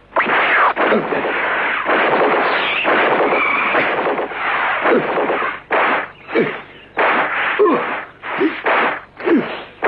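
Cartoon whoosh sound effects: a long rush of noise, then from about halfway a quick series of separate whooshes, about one a second, most with a short falling whistle.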